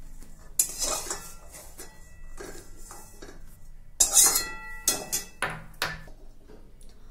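Metal spatula scraping and clinking against an aluminium kadai as fried cashews and raisins are scooped out of the oil. There are several separate scrapes; the loudest comes about four seconds in, with a short metallic ring.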